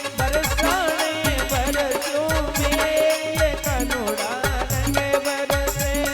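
Instrumental break in a Rajasthani devotional folk song: a sliding, wavering melody line over a steady low drum beat.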